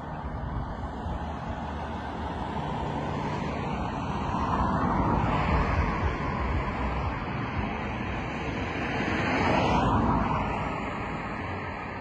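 Road traffic: two vehicles pass one after the other, their tyre and engine noise swelling and fading, the first about halfway through and the second near the end, over a steady low rumble of outdoor air.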